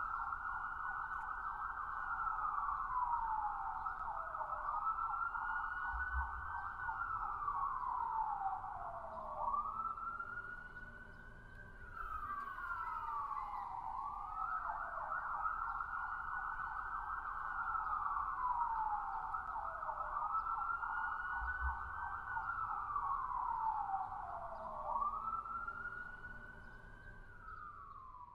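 Police siren wailing, its pitch rising slowly and dropping quickly about every two and a half seconds, fading out near the end.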